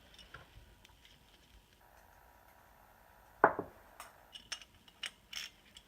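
Faint clicks and taps of a small 9 mm wrench and metal carburetor parts as the float needle seat is snugged down, with one sharp knock about three and a half seconds in and a few light clicks after it.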